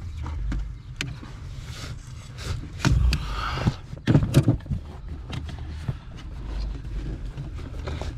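Metal clunks, clicks and a brief scrape of parts and hand tools being worked under a truck's dashboard, with a low rumble of handling noise. The scrape comes about three seconds in, followed by a few louder knocks.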